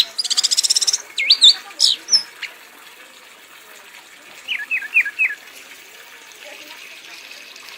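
Kanis merah songbird singing: a fast, buzzing trill in the first second, then a few sweeping whistles, and about halfway through a quick run of four short falling notes.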